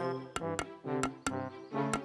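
Hammer knocking nails into a wooden plank, several sharp taps, over background music.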